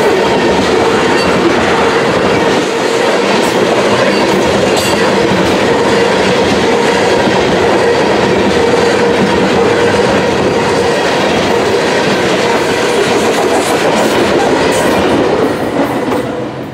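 Freight train of loaded tank cars rolling past close by: a steady clatter and rumble of steel wheels on rail, with occasional sharp clicks. The sound drops away sharply near the end as the last car passes.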